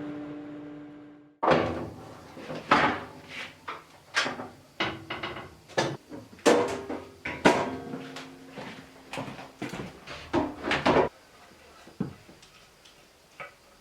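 A steady machine hum fades and then cuts off. A run of irregular hard knocks and clatters follows, one or two a second, some with a short ringing tone, and it stops about eleven seconds in.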